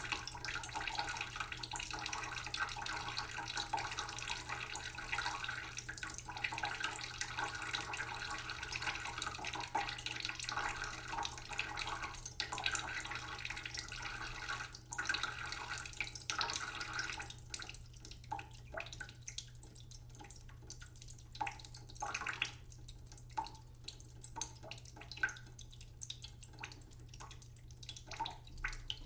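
Kitchen tap running slowly into a cooking pot in a sink, a steady trickling splash. About seventeen seconds in the flow stops and only scattered drips fall into the water. A low steady hum runs underneath.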